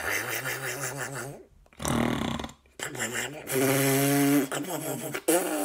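A woman imitating a terrifying snoring creature with her voice, her hand cupped over her nose and mouth, in several drawn-out rumbling bouts, the longest and loudest held steady about two thirds of the way in. It stands for a sleeping Triceratops snoring.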